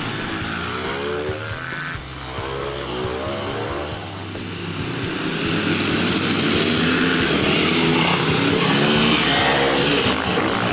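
Several dirt bike engines revving up and down as riders work through corners. The engines grow louder from about halfway through as two bikes come close. Background music with a steady bass runs underneath.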